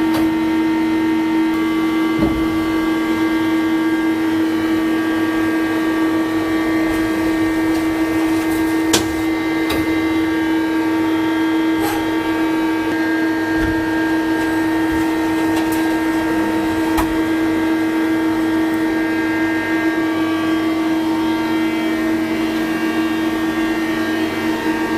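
Spinner TC-65 CNC lathe running with a steady, even hum made of several held tones, and an occasional sharp click.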